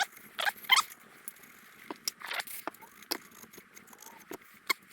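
Irregular short scrapes and clicks of hand-cleaning the inner lip of a motocross exhaust silencer, a few scratchy strokes at uneven intervals.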